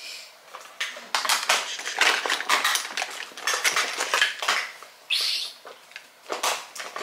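Makeup containers and tools clattering on a hard tabletop as they are picked up and set down: a quick, irregular run of light knocks, clicks and rattles.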